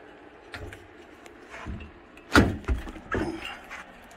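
Handling noise from tools and gear on a metal air-handler cabinet: a handful of separate knocks and metallic rattles, the loudest a little past halfway.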